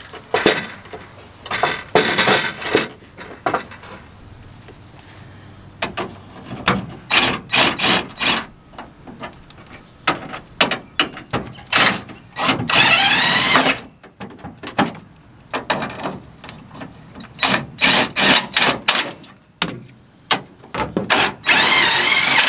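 A cordless drill running in two short bursts, its pitch wavering with the trigger, about halfway through and again near the end, as it drives the bolts of a pickup's rear bumper bracket. Between the bursts there are short clatters and knocks of metal parts being handled and fitted.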